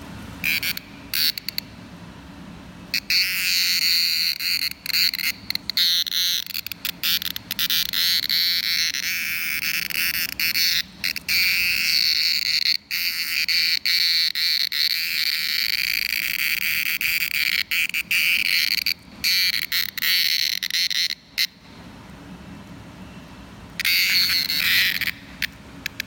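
Male cicada held in the hand, buzzing loudly from its abdominal tymbals. The shrill buzz starts in short bursts, runs almost without pause with brief breaks, stops about 22 seconds in, then comes back briefly near the end.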